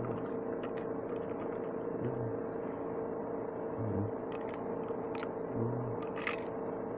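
Scattered light clicks and taps of toy trains and packaging being handled, over a steady background hum.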